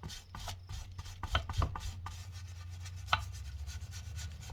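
Scrubbing grime off a part of a Mahindra 5010 tractor's front final drive: quick, repeated rubbing strokes, several a second, over a steady low hum.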